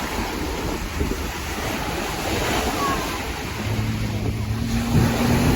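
Surf and wind buffeting the microphone, with a low, steady engine hum coming in about two-thirds of the way through.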